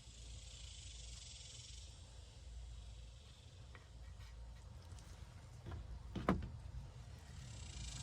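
Faint low rumble with a hiss that fades out about two seconds in, then a few light clicks and knocks, the loudest about six seconds in.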